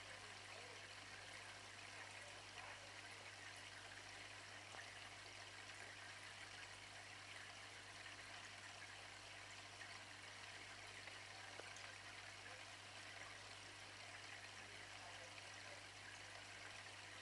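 Faint, steady trickle of aquarium water circulating, over a low steady hum.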